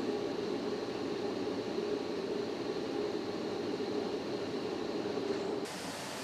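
Steady mechanical hum, such as a running machine or ventilation in an industrial hall. A little over five seconds in it cuts off abruptly and a different, thinner and hissier steady noise takes over.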